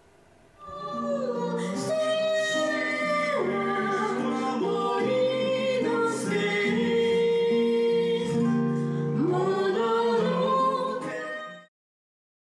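A man and a woman singing live to an acoustic guitar, starting about a second in and cutting off abruptly near the end.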